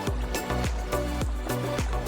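Background music with a steady beat and bass line, a low thump about every half second.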